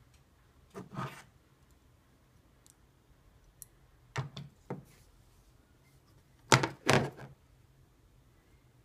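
Small steel milling-machine accessories being handled and set down on a tabletop. There is a knock about a second in, three quicker knocks just past four seconds, and two louder clunks around six and a half to seven seconds.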